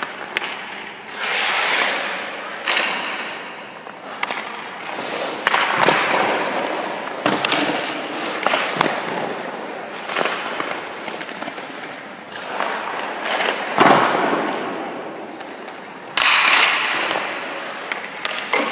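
Ice hockey skates scraping and stopping on the ice, with sharp cracks of a stick shooting pucks and thuds of pucks against a goalie's pads, repeating throughout the drill in a rink's echo.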